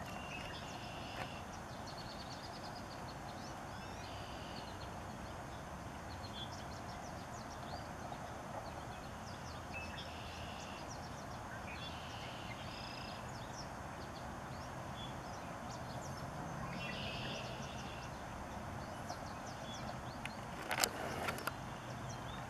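Steady outdoor background noise with faint high chirps every few seconds. A low hum grows in the second half, and a few sharp clicks come near the end.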